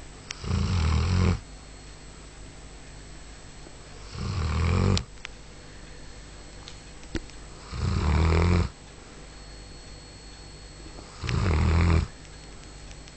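Bull Arab dog snoring: four loud snores, each about a second long, coming every three and a half seconds or so, with quiet stretches between them.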